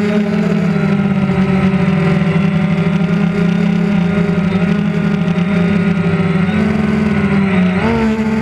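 Quadcopter drone's motors and propellers buzzing steadily at a high pitch, the pitch shifting and wavering near the end as the drone manoeuvres.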